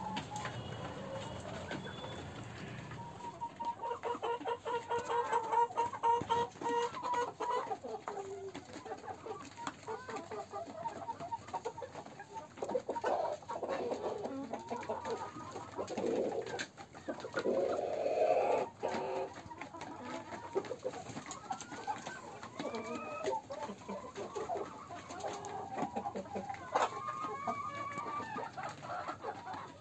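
Flock of desi hens clucking and calling, many short overlapping calls throughout, with scattered light clicks.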